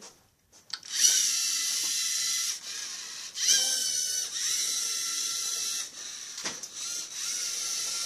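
Small LEGO robot's electric drive motors whining as it drives across the mat. The motors start about a second in, ease off briefly a couple of times, and rise in pitch as they speed up about three and a half seconds in.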